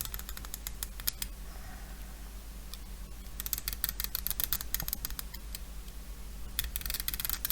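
Bursts of quick, scratchy clicking strokes from a hand tool trimming a plastic model kit part, in three spells with short pauses between.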